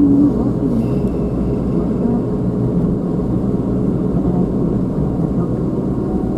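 Car engine and road noise heard from inside the cabin, a steady low rumble while driving slowly.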